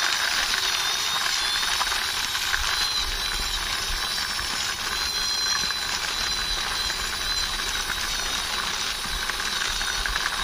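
Plastic toy army jeep pushed by hand over concrete, its geared friction motor whirring with a fast ratcheting clatter.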